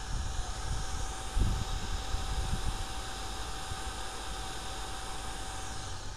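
Desktop computer's cooling fan running with a steady hiss and a faint constant whine, the hiss cutting off suddenly near the end, as a fan slowing down would. A few low bumps sound under it.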